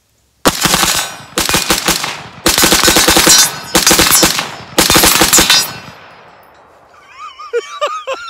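Five rapid strings of gunfire from an AR-15 short-barreled rifle with a 7-inch 5.56 barrel, its trigger switched to echo (binary) mode, which fires on both pull and release. The shooter laughs near the end.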